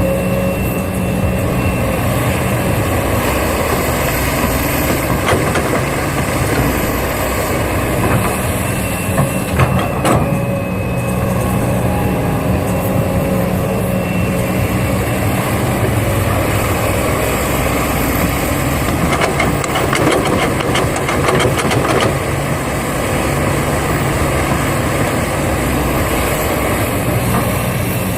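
Radio-controlled model excavator working with a steady engine-like hum. A thin high whine rises and falls at intervals, and a run of rattling clicks comes about two-thirds of the way through.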